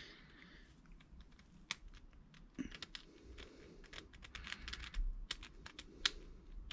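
Metal pick scratching and ticking against a small steel brake caliper bolt: a faint, irregular run of light clicks, busiest around five seconds in, as spots of leftover rust are picked off after a rust-remover soak.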